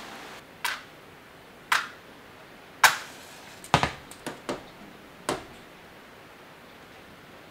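Sharp wooden knocks and clicks, about nine spread irregularly over some five seconds, as firewood and kindling are laid into a wood stove's firebox.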